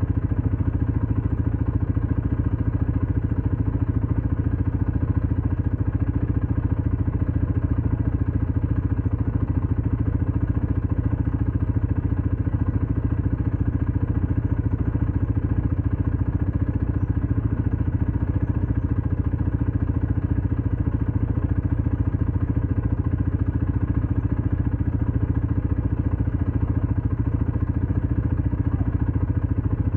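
ATV engine running at a steady pace, with no change in speed.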